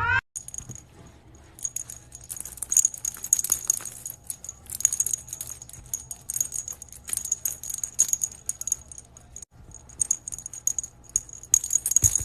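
A small bell jingling in irregular shakes and rattles, with brief pauses.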